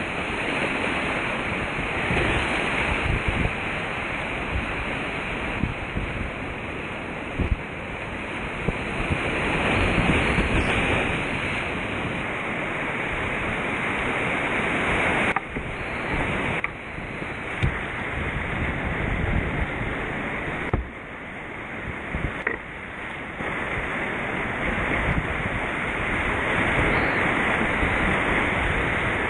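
Whitewater rapids of a creek rushing loudly around a kayak, heard close up from the boat, with occasional low thumps and a few sudden short drops in level.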